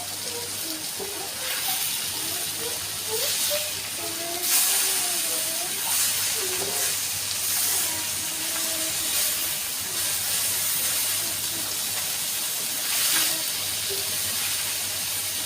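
Fish frying in hot oil in a pan: a steady sizzle that swells louder several times.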